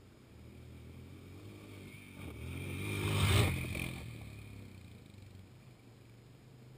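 Four-wheeler (ATV) engine approaching along the trail, passing close by about three and a half seconds in, then fading away.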